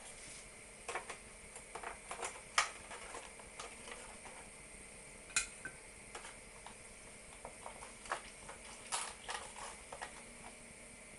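A metal fork tapping, clicking and scraping against a foil roasting tray and china plates while lamb chops are lifted out and served. The taps come irregularly, the sharpest about two and a half and five and a half seconds in.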